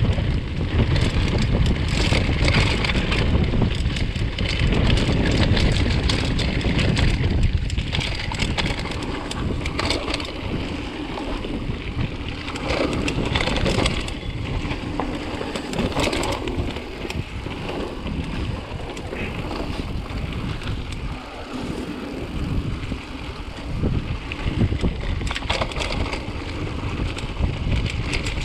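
Wind buffeting the microphone and mountain bike tyres rolling over a dirt and leaf-covered trail, with frequent short clicks and rattles from the bike over bumps. The low wind rumble is heavier in the first half.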